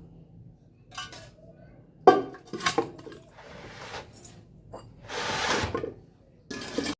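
Handling noises: a sharp clink or knock about two seconds in, with a few more knocks after it, then two spells of brief rushing noise, the louder one near the end.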